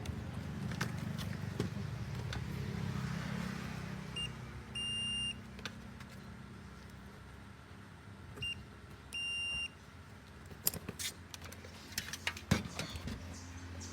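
A low hum fades out over the first few seconds. Two pairs of high electronic beeps follow, each a short pip and then a longer beep of about half a second, some four seconds apart. Near the end comes a run of sharp clicks and knocks.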